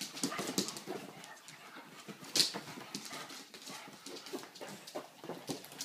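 Two Shar-pei dogs play-fighting: claws clicking and scrabbling on a laminate floor, mixed with short dog sounds, and one sharper click or knock about two and a half seconds in.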